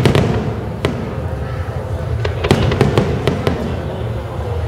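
Aerial fireworks shells bursting: a string of sharp bangs, one at the start, another about a second in, then a quick cluster of reports from about two and a half seconds on, over a low rumble.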